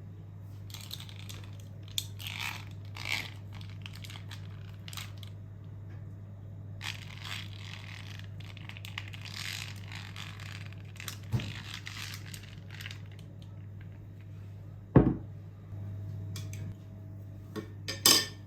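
Objects being handled at home: stretches of rustling and crinkling with light clattering, a sharp knock about fifteen seconds in and a second one near the end, over a steady low hum.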